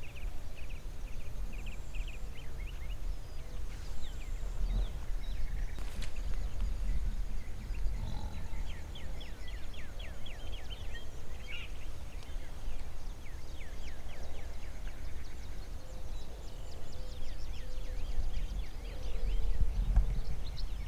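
Small birds chirping and trilling in short repeated runs of high notes, over a steady low rumble.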